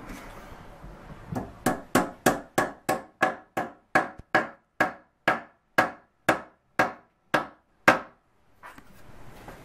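Small hammer tapping walnut plugs into screw holes in a wooden rail: about twenty sharp wooden taps, around three a second, slowing a little toward the end, with a harder last blow.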